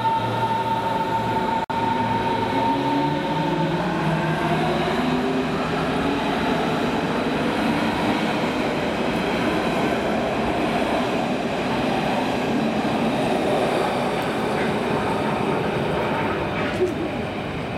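Berlin S-Bahn class 481 electric train accelerating along the platform: the motor whine rises in pitch over a steady rumble of wheels on the rails. A steady high tone fades out in the first few seconds.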